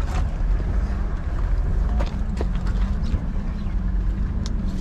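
Steady low rumble of wind on the microphone over outdoor market background, broken by a few sharp clicks and knocks as the Mercedes-Benz Vito van's door is handled and opened, the clearest two about two seconds in.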